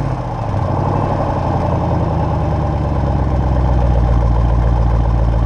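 A 2012 Jeep Grand Cherokee SRT8's 6.4-litre HEMI V8 idling steadily through a GT Haus Meisterschaft cat-back exhaust, just after a rev, with the electric exhaust cutouts closed.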